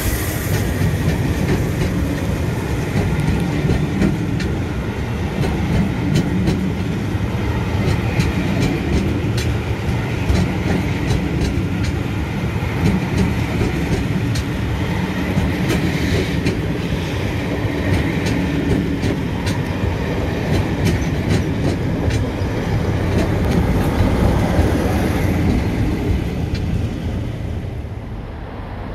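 Passenger coaches of a steam-hauled train rolling past close by: a steady rumble, with the wheels clicking over the rail joints. The sound drops away near the end.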